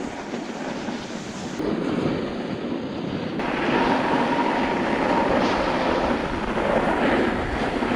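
Wind on the microphone: a steady rushing hiss that grows fuller a few seconds in.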